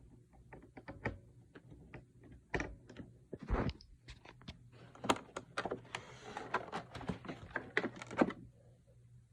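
Irregular clicks and knocks from an iRobot Roomba i-series robot vacuum being handled, sparse at first and thickest from about five seconds in, stopping shortly before the end.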